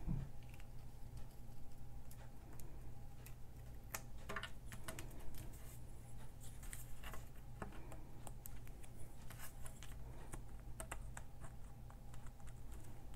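Scattered soft taps, clicks and light scratches as fingertips, nails and a pointed wooden-handled craft tool press small die-cut paper letters down onto cardstock.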